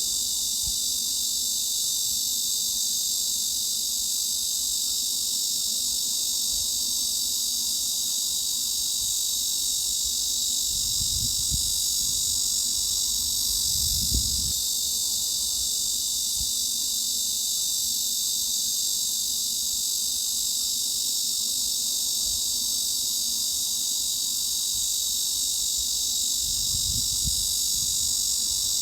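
Cicadas buzzing in a steady, unbroken high-pitched drone, with a few faint low rumbles underneath.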